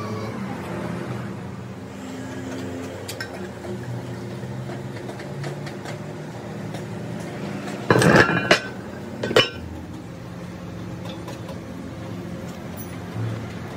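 Metal clanking and clattering, once about eight seconds in and again briefly about a second later, over a steady motor hum.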